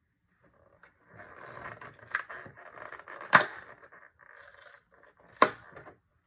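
Packaging being handled during an unboxing: a crinkling rustle with sharp clicks, the two loudest about three and a half and five and a half seconds in.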